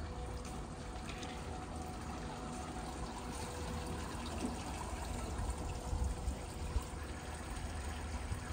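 Pool water running and trickling steadily at a children's swimming pool, with a faint steady hum and a low rumble underneath.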